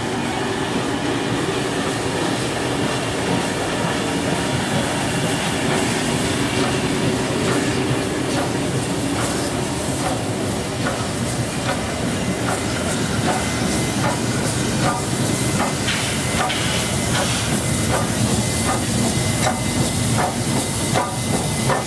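NSW 36 class steam locomotive 3642 slowly backing a train of carriages past, with a steady hiss of steam and the wheels clicking over the rail joints. The clicks come thicker as the carriages and then the engine go by.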